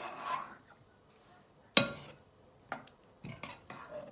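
Metal spoon stirring sticky slime in a bowl, scraping and clinking against the bowl's side. One sharp clink a little under two seconds in is the loudest, with a few lighter knocks after it.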